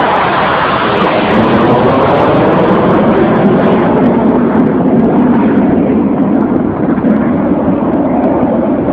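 Loud, steady roar of a fighter jet's engines flying low past, with the pitch sliding down in about the first second as it goes by.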